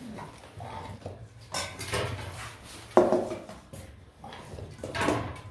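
Stainless steel dog bowls clanking and a metal spoon scraping in a bowl while Rottweiler puppies eat from them, with a string of knocks and clatters; the loudest is a single ringing clang about three seconds in.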